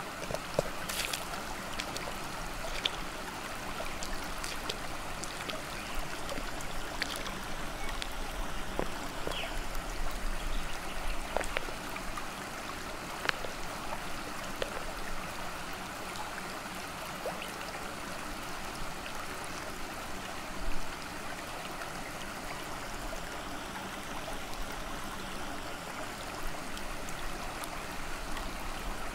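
Water flowing and trickling steadily over a concrete lip in a flood-canal culvert, with scattered faint clicks and one brief louder bump about two-thirds of the way through.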